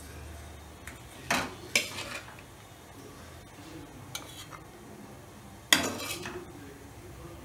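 Slotted steel spatula clinking and scraping against a stainless steel mixer-grinder jar as cooked shallots and dried red chilli are tipped in: a few quick metallic clinks, a faint one, then the loudest clank near the end with a short ring.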